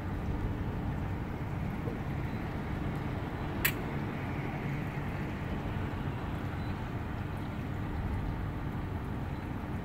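Steady low hum and rumble of an idling boat engine, with a single sharp click about three and a half seconds in.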